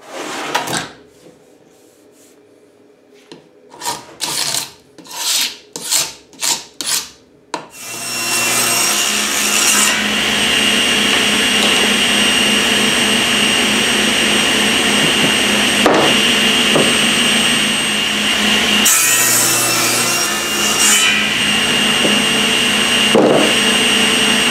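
A few short strokes of wood rubbing or scraping. Then a table saw starts about eight seconds in and runs steadily with a high whine, growing louder twice as it cuts through a laminated wood block.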